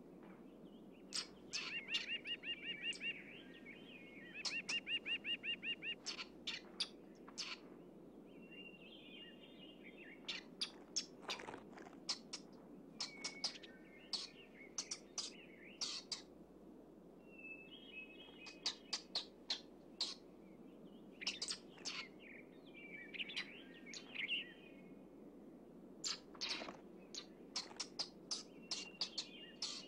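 Weasel giving sharp, high-pitched squeaks and chirps in irregular bursts, with short rapid chattering trills near the start: the defensive calls of a cornered weasel.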